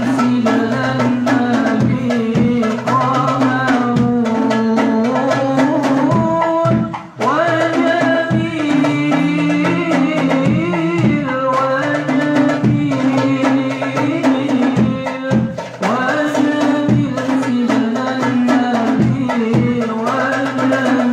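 Hadroh ensemble: hand-struck frame drums (rebana) beating a dense, steady rhythm under a group of voices singing a devotional sholawat. The singing and drumming drop out briefly about seven seconds in, then resume.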